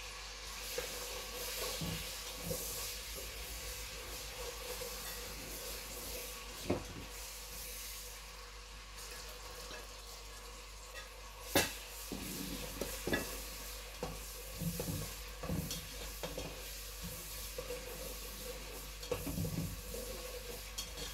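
Food sautéing in a hot pan with a steady sizzle, stirred and scraped with a spatula. There are scattered knocks of utensil on pan or plate, with one sharp knock about halfway through.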